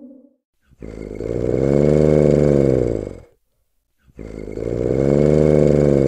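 Wolf growling twice, two long, rough growls of about two and a half seconds each, each rising and then falling in pitch, with a short pause between them.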